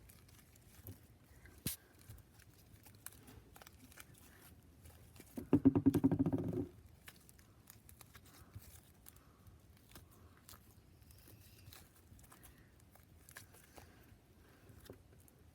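Hands kneading and stretching sticky fluffy slime: faint sticky clicks and crackles. About five and a half seconds in, a louder buzzy sound lasts about a second.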